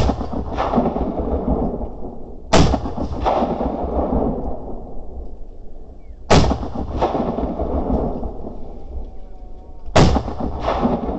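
Four rifle shots at a running coyote, about three to four seconds apart. Each is a sharp report trailing off into a long rolling rumble, with a weaker second bang about half a second after it.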